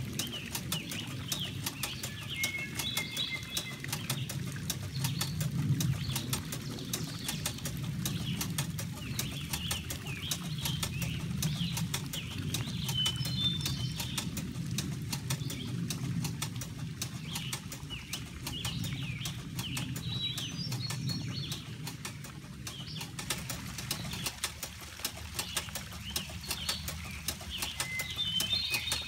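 Water running and splashing over a small model watermill on a garden stream, with a fast, continuous clicking clatter. Birds chirp now and then over it.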